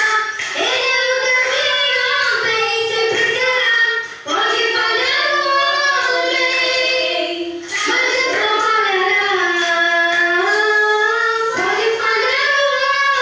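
A young girl singing solo with long held, sliding notes. She breaks for breath between phrases about four, eight and twelve seconds in.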